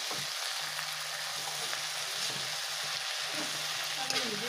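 Chopped vegetables and greens sizzling in oil in a black kadai, stirred and scraped around the pan with a metal spatula.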